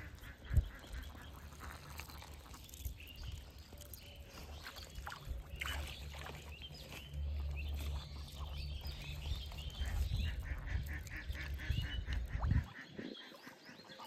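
Ducks quacking in runs of short repeated calls, busiest past the middle, over a steady low rumble that cuts off sharply near the end. A single sharp thump about half a second in.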